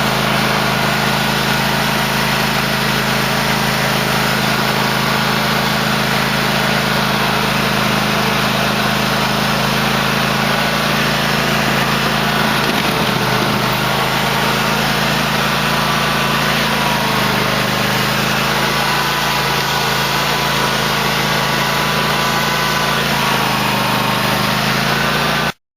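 2008 Cub Cadet LT1050 lawn tractor engine running steadily, its pitch shifting a little partway through, then cutting off abruptly near the end.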